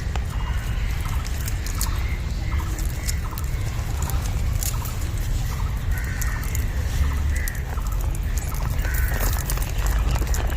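Short, repeated high chirping animal calls scattered throughout, over a steady low rumble.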